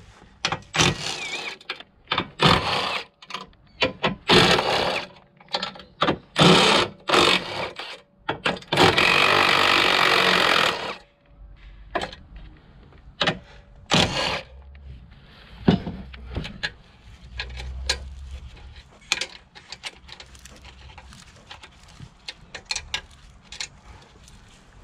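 Ratchet wrench working a bolt deep in a car's engine bay: a run of short, irregular ratcheting bursts, with one longer continuous burst about nine seconds in, then lighter clicks and knocks of the tool against metal.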